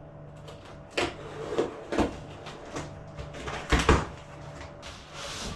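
Cardboard soundbar box being handled and opened: a few sharp knocks and thumps, the loudest about four seconds in, with rustling between them and a short scraping slide near the end.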